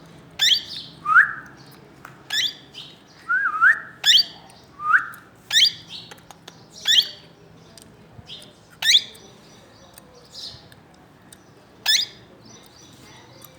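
Plum-headed parakeet calling: a string of short, sharp, high-pitched calls, some with a quick rising whistled note, about one a second at first and more spaced out in the second half.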